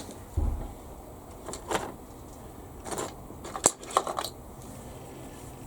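Light clicks and taps of small tools and model-kit parts being handled on a workbench, with a soft thud about half a second in and a faint low hum setting in near the end.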